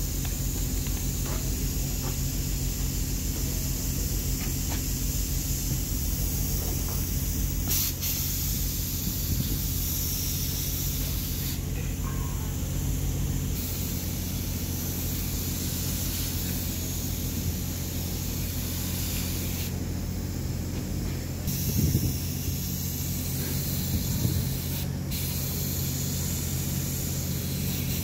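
Compressed-air paint spray gun hissing as it sprays paint, the hiss dropping out briefly about two-thirds of the way through, over a steady low machine hum.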